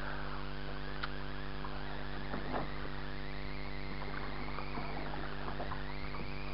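Small boat's motor running steadily as the boat moves, with water splashing and rushing against the hull.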